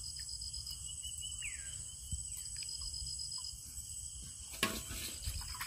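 Insects chirping: a steady high trill with short rapid chirps repeating every couple of seconds. A single sharp knock near the end, likely the bamboo trap being handled.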